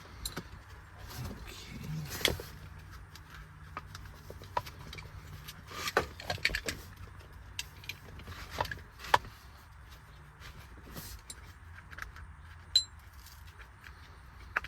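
Metal seat-belt hardware clinking and jingling as it is handled: irregular light clicks and rattles of buckles and anchor brackets, with a couple of sharper clicks later on.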